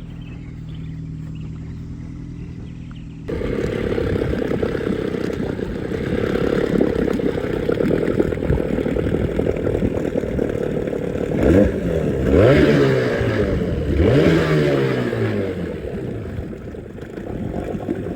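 Small boat motor running rough and noisy, revved up and back down twice about halfway through. Before a sudden cut near the start, a vehicle engine hums steadily at a level pitch.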